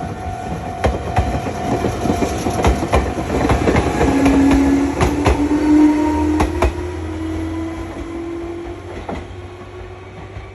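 Meitetsu electric local train pulling away, its wheels clacking over rail joints and its motor whine rising slowly in pitch. It is loudest about halfway through, then fades as the train moves off.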